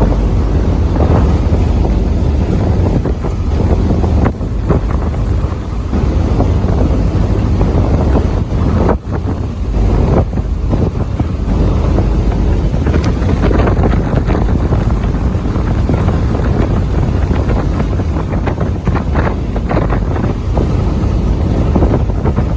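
Strong wind buffeting the microphone in uneven gusts, a loud, low, rumbling roar.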